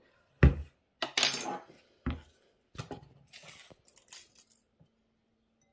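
Plastic box grater being handled and set down on a chopping board: a sharp thump about half a second in, a rattling clatter, a second thump, then several lighter knocks and scrapes.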